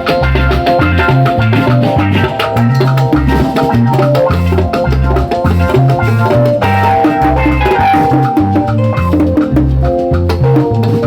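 Instrumental Latin dance music with a salsa feel: a syncopated bass line under percussion and pitched instrument melodies, at a steady loud level.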